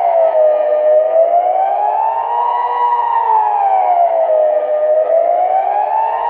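Kockum Sonics Delta civil defence siren sounding a loud, continuous wail that glides smoothly up and down in pitch, about four seconds per rise and fall. This is the rising-and-falling tone of the Swiss general alarm, sounded here for the annual siren test.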